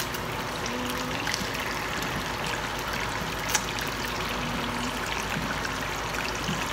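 Whole round scad frying in hot oil in a skillet: a steady sizzle with scattered crackles, and a sharp click just over three and a half seconds in.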